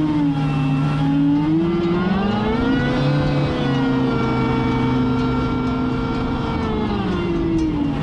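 Mini jet boat's supercharged four-cylinder jet-ski engine (from a Kawasaki Ultra 250X) running under throttle, revving up about two seconds in as the boat accelerates, holding a high pitch, then dropping off near the end.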